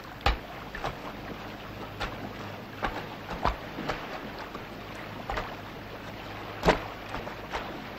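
Irregular clicks and pops over a steady hiss and low hum, the crackle of a worn old film soundtrack, with one louder pop near the end.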